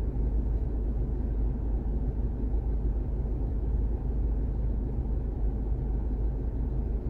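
Steady low rumble of a moving road vehicle, its engine and tyres on the road, with no change through the stretch.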